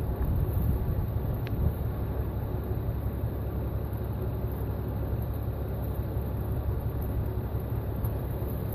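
Steady low rumble of wind buffeting the microphone, with faint background noise and no clear distinct event.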